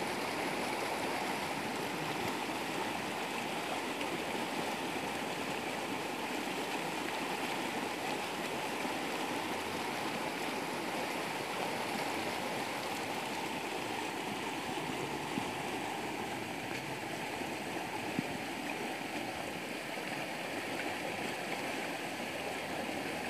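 Muddy floodwater rushing through an overflowing channel in a steady, unbroken rush; the flood is swollen by two days of unceasing heavy rain.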